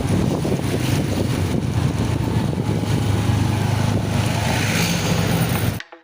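Large road vehicle, a bus, passing close by: a steady low engine and road rumble with wind buffeting the microphone. It cuts off abruptly near the end and music begins.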